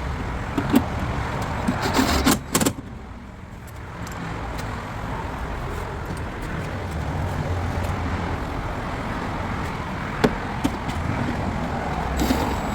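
A few sharp clicks and knocks of tools and metal parts being worked inside a car door, several about two seconds in and one more near ten seconds, over a steady background of road traffic.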